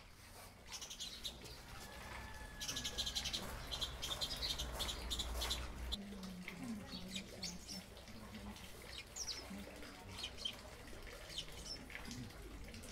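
Small birds chirping and twittering: many short, high calls scattered throughout, over a faint steady background.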